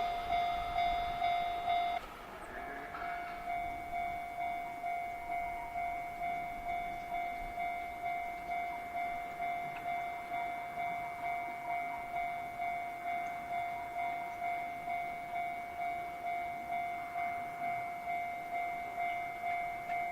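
Japanese railway level-crossing warning bell ringing in a steady, even rhythm of about two strikes a second. It dips briefly about two seconds in, then carries on.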